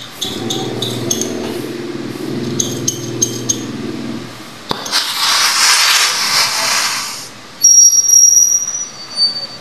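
Oxy-acetylene torch being lit: a low hum for the first four seconds, a sharp click, then an even hiss of gas from the torch tip. A louder burst with a high whistle comes about three-quarters of the way through as the flame catches.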